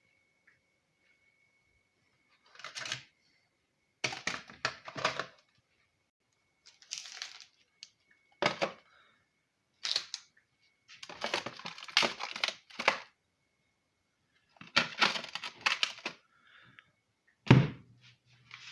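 Intermittent handling noises: short bursts of crackling and clattering, with a heavier thud about a second before the end.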